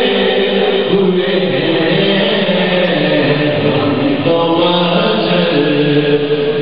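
A male voice reciting an Urdu naat in a melodic, unaccompanied chant through a microphone, with long held notes that step between pitches.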